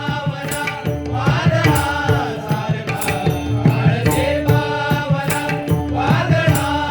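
Bhajan music between sung lines: pakhawaj and tabla keep up a steady rhythm under a melodic line, with bending vocal phrases that come and go, about a second in, near four seconds and near the end.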